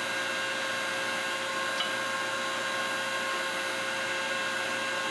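Steady machine drone, an even hiss with a few steady tones over it, as from a running motor or fan. There is a faint metallic tick about two seconds in.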